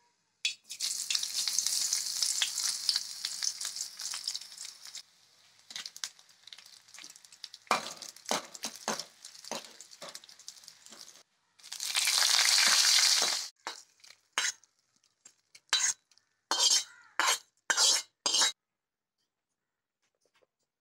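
Mustard seeds sizzling in hot oil in a kadai for a tempering, followed by a steel spoon scraping and clinking as dried red chillies are stirred through. A second loud burst of sizzling comes about twelve seconds in, then a few short scrapes.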